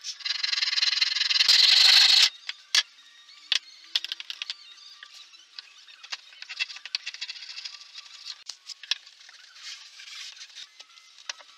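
Rough scraping on MDF for about two seconds, stopping abruptly, then scattered clicks and short light scrapes as hand tools and MDF pieces are handled on the bench.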